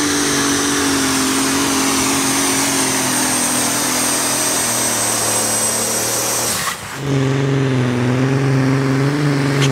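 Modified pulling tractor engines running hard under load. A steady, heavy engine note carries a high, slowly falling whine; about two-thirds of the way through it cuts abruptly to another tractor's engine at a lower, slightly wavering pitch.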